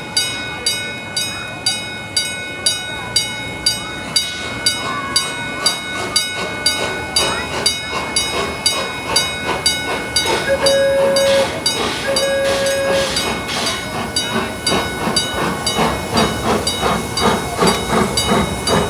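Steam train pulling away with a regular beat that quickens, and two short whistle toots about halfway through.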